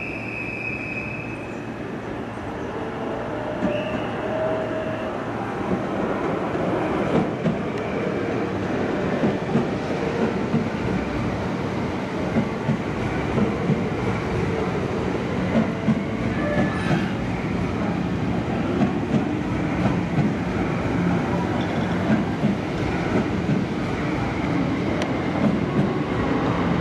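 A 681/683-series limited express electric train rolling through the station, its wheels clacking over rail joints in a repeated rhythm. The rumble builds over the first several seconds.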